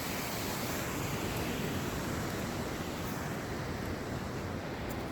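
Waterfall rushing steadily, a constant even hiss of falling water.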